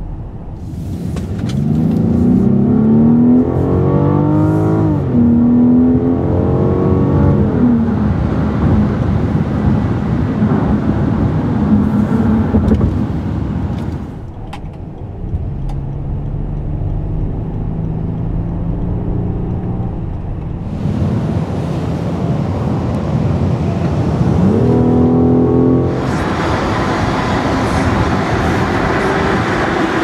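Rolls-Royce Wraith's twin-turbo V12 heard from inside the cabin under way: the engine note climbs under acceleration and drops sharply at an upshift a few seconds in, then holds steady over road noise while cruising. It climbs again shortly before the end, when the sound turns to a louder, hissier road roar.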